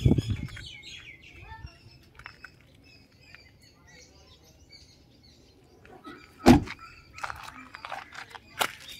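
Small birds chirping now and then in the background. One loud, sharp thump comes about six and a half seconds in.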